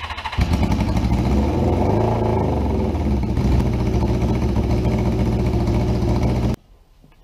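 Suzuki GS550's air-cooled inline-four catching on the electric starter about half a second in, then running steadily on only three cylinders: one cylinder is dead from a fouled spark plug. It cuts off suddenly about a second before the end.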